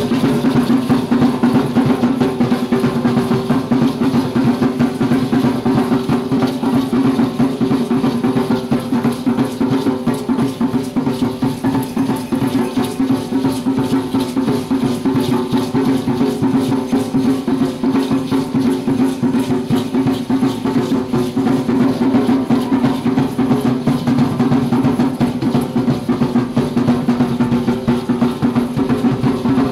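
Drumming for Aztec dance (danza azteca): a drum beaten in a fast, steady, unbroken rhythm.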